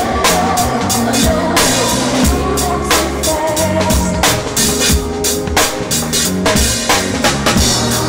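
Live band music: a drum kit keeps a steady groove over a moving bass line, with held keyboard or vocal notes above.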